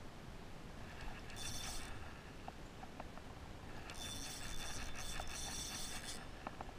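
Spinning reel whirring with a high steady tone while the rod is bent under a hooked fish, in two spells: briefly about a second and a half in, then for about two seconds from four seconds in. A few light ticks in between.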